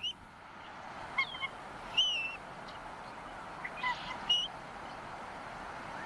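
Bald eagles calling: about half a dozen short, high-pitched chirps, several falling in pitch, the loudest about two seconds in, over a steady rush of wind.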